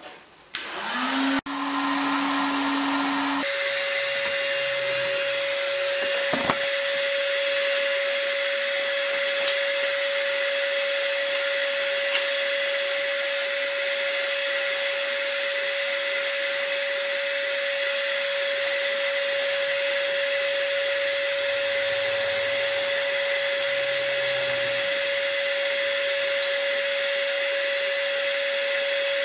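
Electric heat gun switched on with a click: its fan motor runs briefly at a lower pitch, then steps up about three and a half seconds in to a louder, steady whine with a rush of air on its stronger setting.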